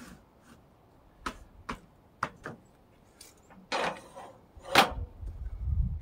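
Sawn wooden boards being knocked and shifted by hand on a portable sawmill's steel bed: a series of sharp knocks, a short scrape a little before four seconds in, the loudest knock near five seconds, then a low rumble.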